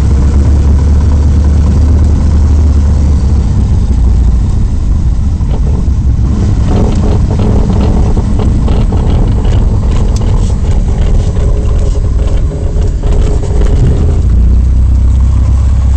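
Cessna's single piston engine and propeller running at low power as the plane rolls out and taxis after landing, a steady low drone heard inside the cabin. Scattered clattering and knocks come in through the middle.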